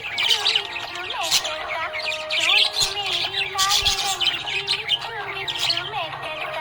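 Budgerigars chirping and warbling busily, many quick overlapping chirps, over a low wavering melody.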